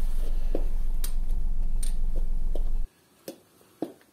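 A steady low hum that cuts off abruptly about three seconds in, over scattered light clicks of hand tools at a car's brake caliper. After the hum stops, two sharper clicks come about half a second apart.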